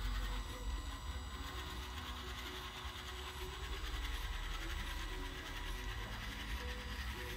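Small DC motor and spur-gear drive of a homemade RC truck whirring steadily under load as it crawls up a ramp, with soft background music.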